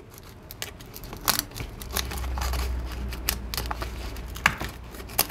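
Cracked smartphone display being pried off its frame with a plastic phone card: irregular crackles, clicks and snaps of the broken glass and adhesive giving way, with a low rumble for a couple of seconds in the middle.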